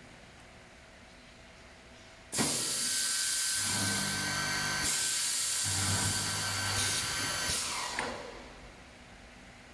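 Multi-spindle woodworking boring machine starting abruptly and running at high speed, with a deeper note in two stretches of about a second each, then running down and stopping near the end.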